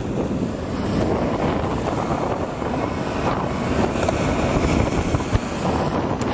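Wind rushing over the microphone at downhill speed, over a steady rumble of wheels rolling on rough asphalt.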